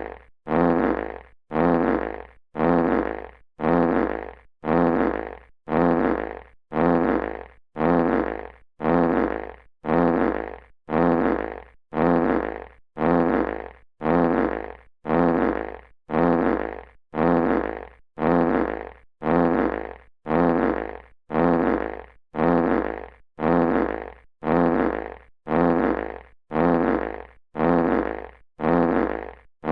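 A classic fart sound effect looped over and over, the same fart repeating about once a second, each one starting abruptly and trailing off.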